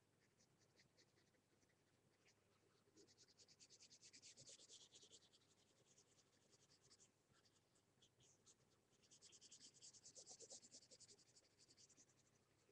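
Faint felt-tip marker scribbling quickly back and forth on paper, colouring in a solid area. It comes in two spells of fast, dense strokes, about a quarter of the way in and again past the middle, with lighter strokes between.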